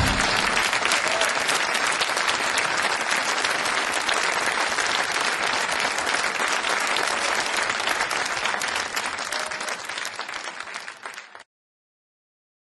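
Audience applauding after a song ends, dying away gradually and then cutting off abruptly about eleven seconds in.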